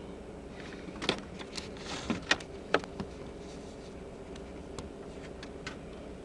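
Steady low hum inside a car cabin, with a run of sharp clicks and taps from about one to three seconds in and a few fainter ticks later, like hands handling the camera.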